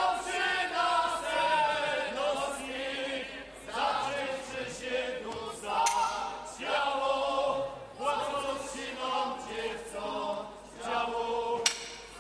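Group of Podhale highlander (Górale) folk singers singing together in short phrases with brief breaks between them. Two sharp knocks cut through, about six seconds in and again near the end.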